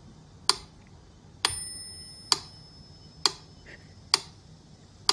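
Clock ticking steadily, about one sharp tick a second; one tick about one and a half seconds in carries a brief bell-like ring.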